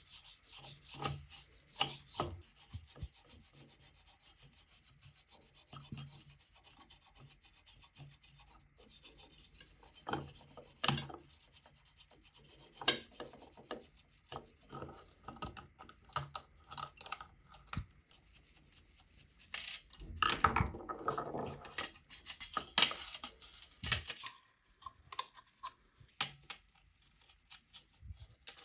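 Hand rubbing or scrubbing strokes on a part, quick and even at first, then sparser, with intermittent clicks and knocks of small parts being handled and a louder stretch of scrubbing a little before the end.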